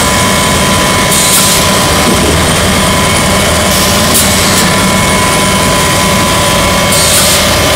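Rotary pulp-molding egg tray forming machine running: a loud, steady mechanical din with a thin constant whine, and a short hiss about every three seconds.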